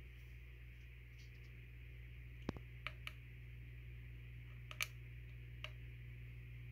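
A few faint light clicks and taps as small clear plastic containers and lids are handled, over a steady low hum.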